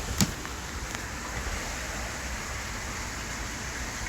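Steady hiss-like background noise with a low rumble underneath, and one sharp click just after the start.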